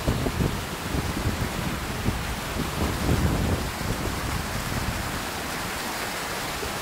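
Small ice-cold meltwater stream rushing and splashing over rocks, heard close up: a steady rush with irregular low gurgles.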